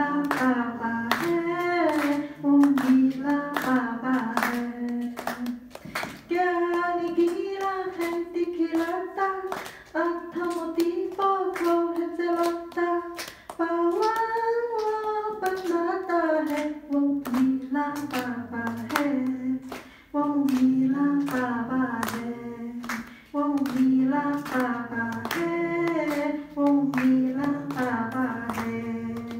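Devotional song to Baba sung by a woman, with steady hand claps keeping time to the melody.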